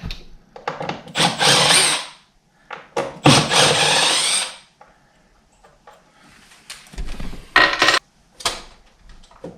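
Wood being cut out of a door edge to mortise a recess for the latch plate: two loud rasping bursts about a second long, then a shorter one and a few knocks near the end.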